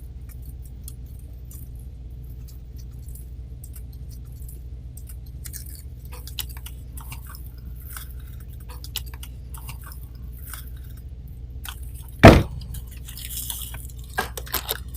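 Dry grapevine twigs crackling and clicking while a zip tie is worked around a thick branch of the wreath, over a steady low hum. One loud knock sounds about twelve seconds in, then a short rustle.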